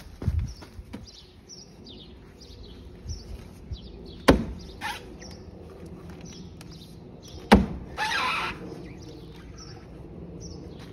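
Heavy axe blows into the fibrous trunk of a felled Washingtonia filifera palm: three sharp strikes, near the start, about four seconds in and about seven and a half seconds in, the last followed by a brief rasping noise. Small birds chirp throughout.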